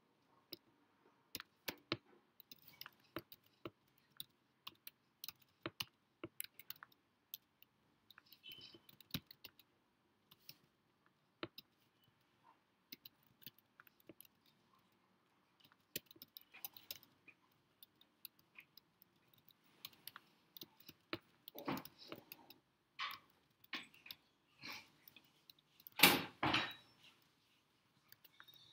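Computer keyboard typing: irregular key clicks in quick runs and pauses, with a few louder, longer noises in the last several seconds, the loudest about three seconds before the end.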